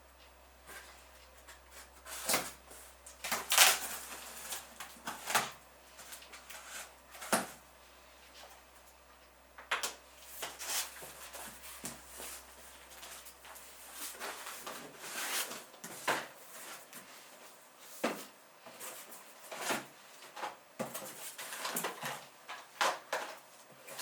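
Irregular clicks, knocks and rustling of objects being handled and set down on a hard surface, with no steady rhythm.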